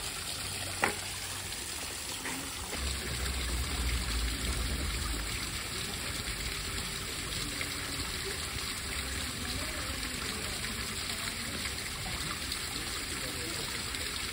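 Water trickling steadily into a shallow spring-fed pond. There is one sharp click about a second in and a low rumble for a couple of seconds a little later.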